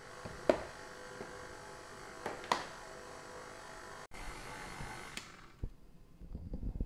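Latches of a plastic snap-lock food container clicking open: two sharp clicks about two seconds apart over a steady electric hum. Near the end a run of low, irregular thuds begins.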